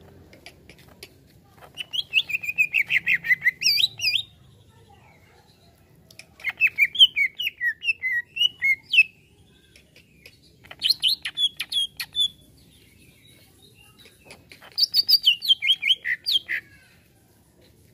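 Greater green leafbird (cucak ijo) singing: four bursts of quick, varied chirping whistles, each two to three seconds long, with short pauses between.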